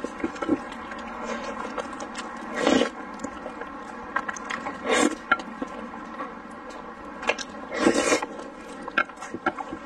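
Close-miked slurping of spicy noodles: three loud slurps a couple of seconds apart, the last one the longest, between wet chewing and small mouth clicks.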